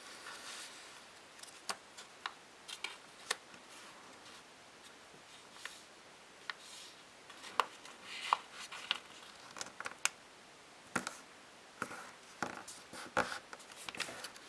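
Square of origami paper being folded and creased by hand: scattered sharp paper crackles and rustles, busier in the second half.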